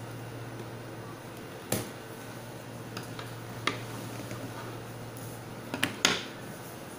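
Printer packaging and parts being handled during unboxing: a few sharp knocks and clicks, spaced apart, the loudest cluster near the end, over a steady low hum.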